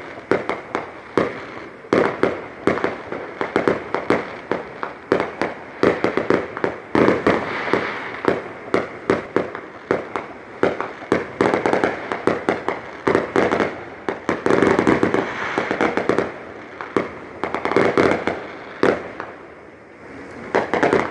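Fireworks display going off close by: an irregular barrage of bangs and crackles, several a second, packing into dense runs of overlapping bursts through the middle and thinning out near the end.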